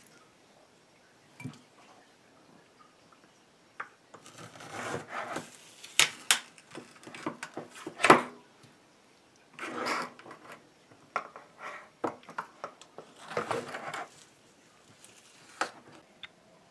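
Frozen custard blocks being worked out of a sectioned pan: a series of scrapes and rubs, with a few sharp knocks, the loudest about eight seconds in.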